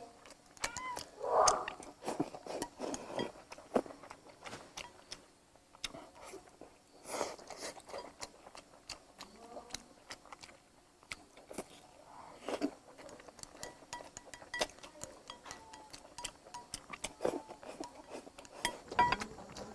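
A person chewing mouthfuls of fatty red-braised pork belly and rice close to a clip-on microphone: irregular wet smacks and clicks of the mouth.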